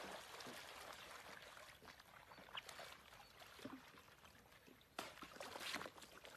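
Near silence: a faint steady hiss with a few soft taps, and a brief swell of noise about five seconds in.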